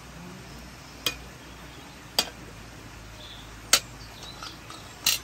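Metal spatula clinking against metal pots while cooked rice is scooped out and served: four sharp clinks roughly a second apart, the last a quick double.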